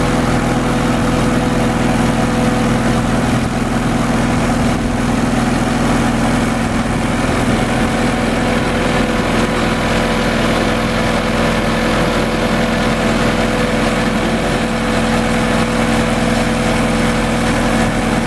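Travel lift's engine running steadily at a constant speed, an even hum that does not change in pitch or loudness.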